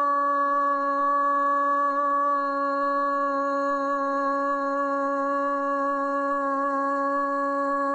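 A man's shouted voice holding one long, steady vowel at a single pitch: a football commentator's drawn-out "gooool" goal call.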